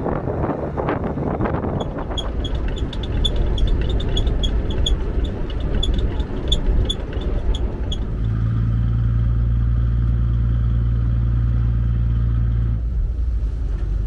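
Boat engine running under a rumble of wind and water, with a fast regular ticking of about four a second. About eight seconds in, the engine of a sand-unloading pump boat takes over with a steady drone, its higher tones dropping away near the end.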